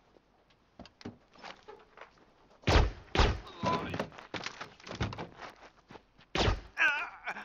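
A series of heavy thuds and bangs, the loudest about a quarter of the way in and again about 6 seconds in, with smaller knocks between, then a brief wavering sound near the end.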